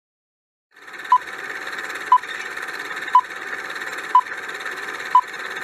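Quiz countdown-timer sound effect: a steady hissing buzz that starts about a second in, with a short beep about once a second, five beeps in all.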